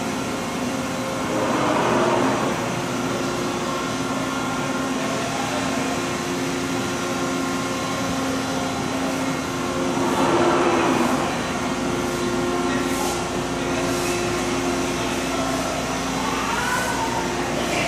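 Steady hum of running industrial machinery, with several held tones over a low drone. It swells louder briefly about two seconds in and again around ten seconds.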